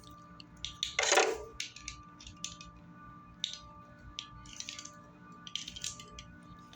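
Steel nut being run onto a freshly deburred all-thread rod by hand: light metallic clicks and scrapes, with one louder scrape about a second in.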